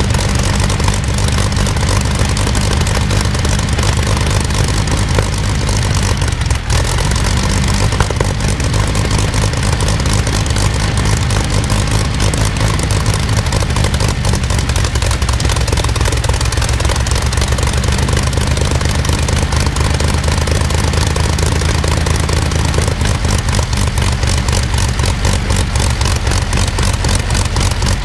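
Rolls-Royce Griffon 58 V12 aero engine (36.7 litre) running on its test trailer with the propeller turning: a loud, steady, deep engine note with a fast even firing pulse.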